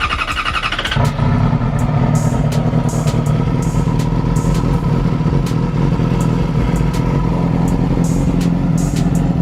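Yamaha R6's inline-four engine is cranked on the electric starter, catches about a second in and settles into a steady idle. It is being run with the radiator cap off to bleed air bubbles from freshly added coolant.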